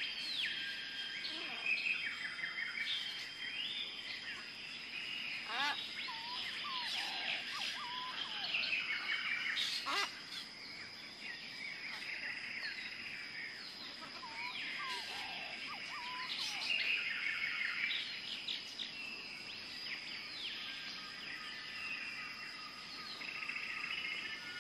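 Several birds chirping and calling in short, repeated phrases, over a steady high-pitched whine.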